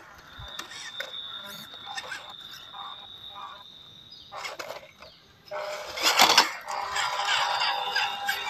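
Small electric motors and gearboxes of RC crawler trucks whining as they crawl over a rock, with a louder rush about six seconds in as one comes down close.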